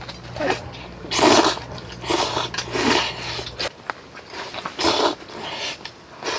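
A person slurping noodles from a bowl in a series of short, noisy slurps about a second apart.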